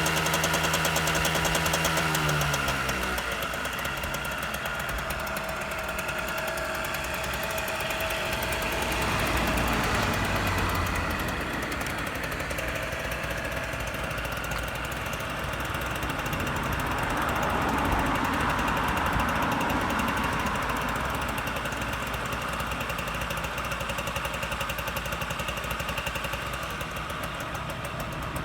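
Yamaha DT50's small two-stroke single-cylinder engine running. The revs drop about two seconds in, then it runs on at a lower, uneven idle that swells a little twice.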